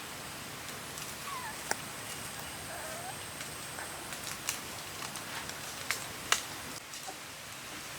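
Puppies whimpering faintly, two short falling squeaks over a steady hiss, with a few sharp clicks in between.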